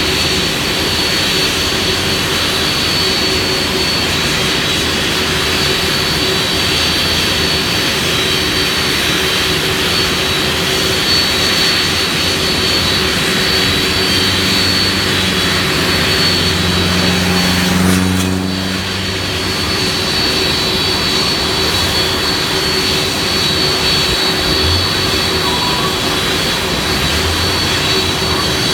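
Boeing 767 twin turbofan engines at taxi power: a steady jet rumble with a constant high whine. A little past the middle a low droning hum swells for a few seconds, then cuts off.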